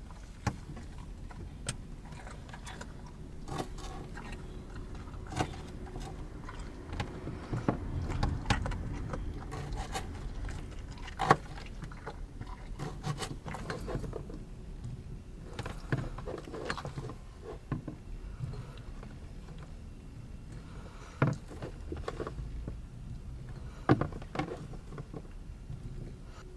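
Scattered small clicks and knocks, three of them louder, over a low steady rumble.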